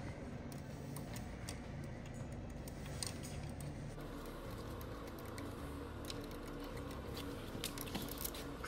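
Light metallic clicks and ticks as fingers work the clamp at the base of a Willys engine's Auto-Lite distributor, scattered and more frequent in the second half, over a steady low hum.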